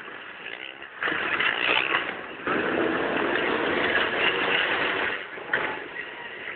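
Motocross bike engines revving on the ice as riders pull away. The sound jumps up about a second in, louder again a moment later, then drops back near the end.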